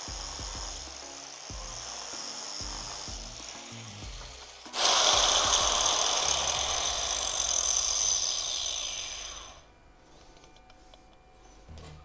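Angle grinder fitted with a diamond cutting disc, coasting down at first, then switched on again about five seconds in and running free with no load for about five seconds before spinning down. The disc has just been run into a dressing stone to clear its clogged, glazed cutting edge.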